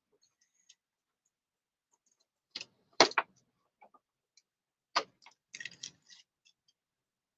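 Sharp plastic clicks and taps from handling an action figure and its packaging, a few separate strokes with one loudest about three seconds in, then a short rustly cluster of small clicks.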